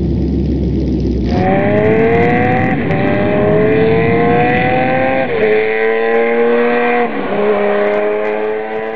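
Motorcycle engine accelerating through the gears: a low rumble, then from about a second and a half in a rising engine note that drops back at each of three gear changes, beginning to fade near the end.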